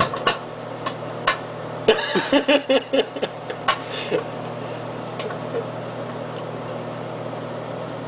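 Microwave oven running with a steady low hum. A few sharp clicks come in the first couple of seconds, and a short cluster of knocks and rustles comes between about two and three seconds in.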